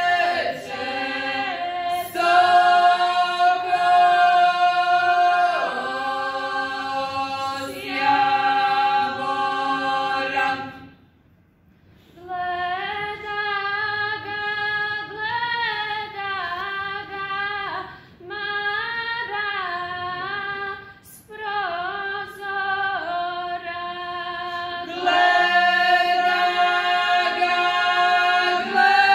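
A small group of women singing a traditional Croatian wedding song a cappella, in long held phrases with two or more voices sounding together. The singing breaks off briefly about eleven seconds in, then carries on.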